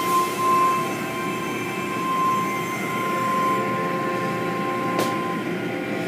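Automatic car wash tunnel running: steady mechanical noise of spraying water and cloth curtain mitters swishing over a vehicle, with a steady high whine that fades about three and a half seconds in and a single sharp click near five seconds.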